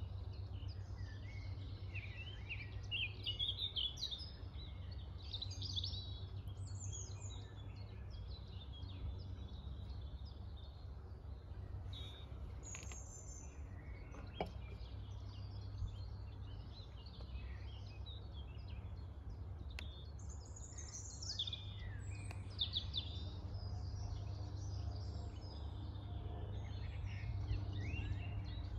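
Several birds singing and chirping from the surrounding trees, with many short trills and chirps overlapping, over a steady low rumble.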